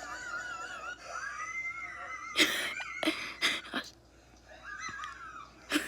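Wheezing laughter: high, wavering squeaky tones broken by several short, sharp gasping bursts, with a brief pause about four seconds in.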